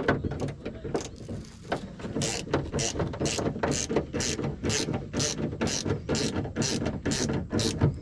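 Hand ratchet clicking as it tightens the mounting fastener of a car's exterior door handle: a few loose clicks at first, then a steady rhythm of ratcheting strokes about two a second.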